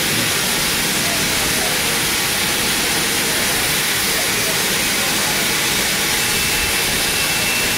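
Steam hissing steadily from a Great Western steam locomotive standing close by. A faint thin high tone joins it near the end.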